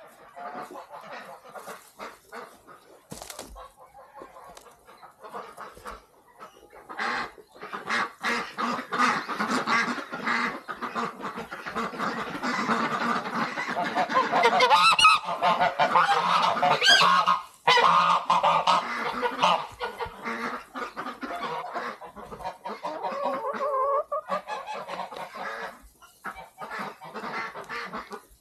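A flock of domestic geese honking, many calls overlapping, loudest about halfway through.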